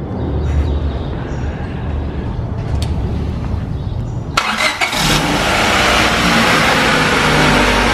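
Honda Civic's four-cylinder engine cranking with a low steady rumble, then catching a little over four seconds in and running loudly through newly fitted stainless steel exhaust headers.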